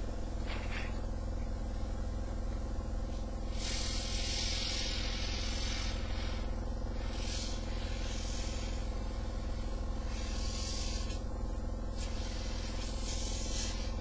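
A small electric air pump running with a steady buzzing hum, blowing cooling air through a small nozzle, with stretches of airy hiss that come and go.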